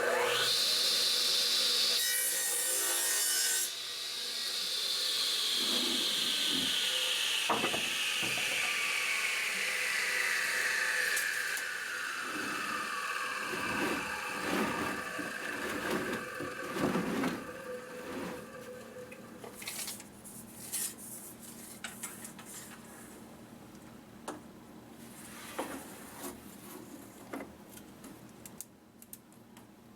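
Sears Craftsman radial arm saw starting with a quickly rising whine, then cutting through a wooden board for about a second and a half. The motor is then switched off and winds down with a long falling whine over roughly ten seconds, followed by scattered knocks of the board being handled.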